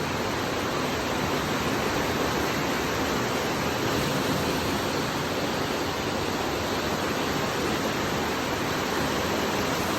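Floodwater of a swollen river rushing, a steady, even noise of fast-moving water with no let-up.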